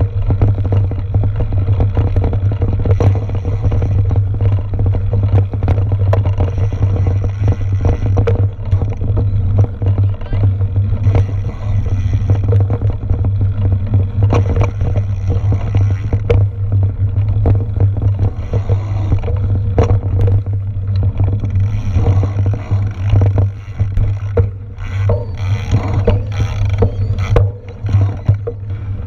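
Steady low rumble of wind and motion on a mountain bike's onboard action camera, with frequent knocks and rattles as the bike runs over the rough dirt trail.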